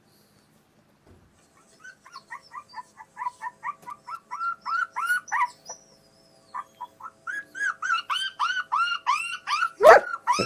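Phone ringtone of short falling chirps, about four or five a second, growing louder, breaking off for a moment about halfway and then starting again. A dog barks once near the end.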